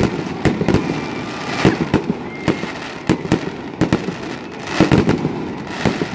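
Aerial fireworks bursting overhead in quick succession: a loud, irregular run of bangs and crackles, thickest about five seconds in.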